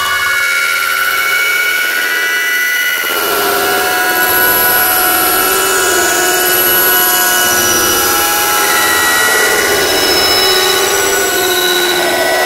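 A loud, dense drone of many steady high tones layered over a hiss, thickening in its lower range about three seconds in.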